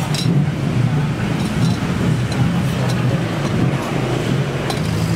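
Street ambience: a steady low hum of motorbike and traffic engines, with a few light clinks of metal utensils at the stall.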